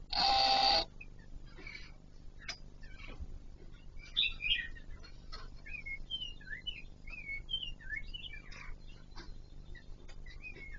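Kon Ka Kinh laughingthrush calling: one loud call in the first second, then chirps and a run of short, rising-and-falling whistled notes.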